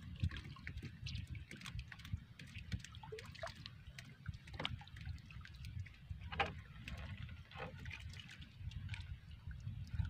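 Sea water lapping and dripping around a small outrigger boat, with scattered light clicks and small splashes as a wet multi-hook fishing line is hauled in by hand.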